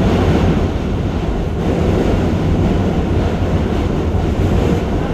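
Steady, loud rumble of a New York City subway train running over the tracks, heard from inside the car.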